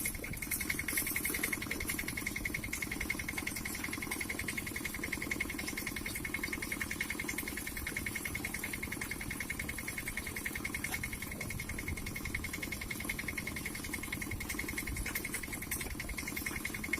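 Tractor engine fitted to a modified car frame, running steadily with a rapid, even beat that does not change.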